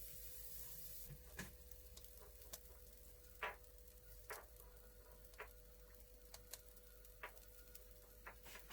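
Near silence: room tone with a faint steady hum and a scattering of faint, irregular clicks and light knocks.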